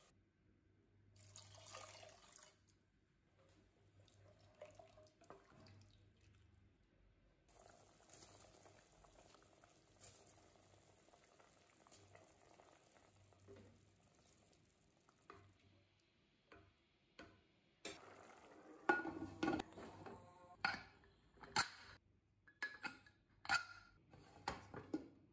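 Water bubbling faintly in an aluminium pressure cooker with chickpeas, onion and spices, then a string of sharp metallic clinks and clanks in the last several seconds.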